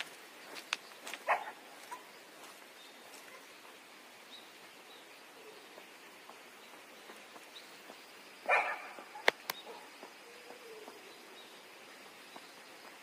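A dog barks twice, once about a second in and more loudly about eight and a half seconds in, with a couple of sharp clicks just after the second bark. Sneaker footsteps on concrete can be heard in the first two seconds.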